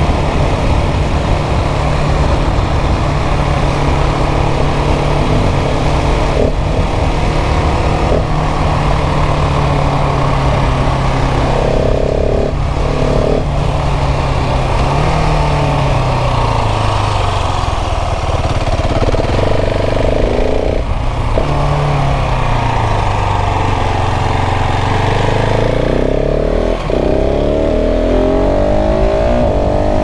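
KTM 690 SMC R's single-cylinder LC4 engine under way, holding steady revs for about fifteen seconds, then dropping and rising again twice as the bike slows on the engine and pulls away.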